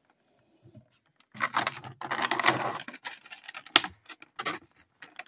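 Clear plastic packaging of a Funko Pop vinyl figure rustling and crinkling as the figure is pulled out. It comes in rustling stretches after a quiet first second, then in sharp plastic clicks, the loudest a little before the fourth second.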